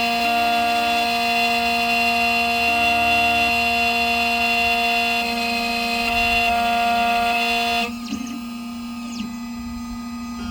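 Xhorse Dolphin XP005 key-cutting machine running with a steady, high motor whine as it cuts a BMW HU92R key blade. About eight seconds in, the whine drops away and the motor winds down to a quieter hum.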